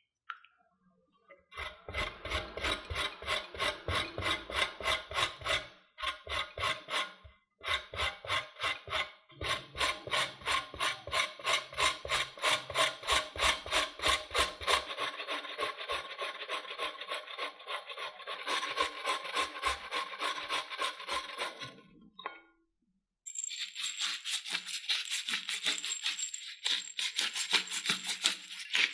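Boiled potato rubbed on a metal hand grater, quick repeated rasping strokes with a few brief pauses. Near the end a pepper grinder grinds black pepper, a finer, faster rattling grind.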